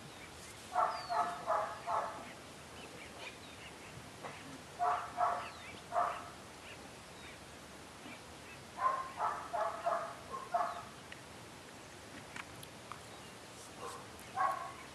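An animal calling in quick volleys of three to six short calls, a volley about every four seconds.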